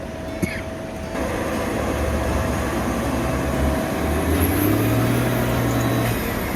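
Heavy machinery's diesel engine running and working, getting louder about a second in, its low drone shifting in pitch.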